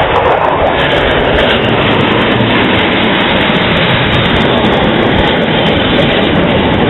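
Jet roar from Blue Angels F/A-18 Hornets flying overhead: a loud, steady rushing roar.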